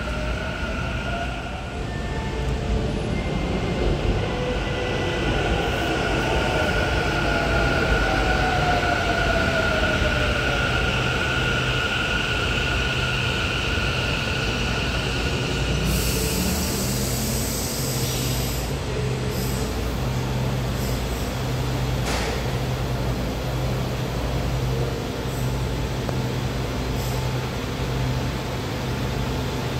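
Taichung MRT Green Line metro train pulling into the station and braking. Its motors whine, falling in pitch, over a steady high whine. For the second half the train stands with a steady low hum, and a single click comes about two-thirds of the way in.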